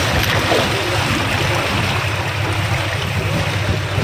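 Floodwater rushing steadily, with a low steady hum underneath.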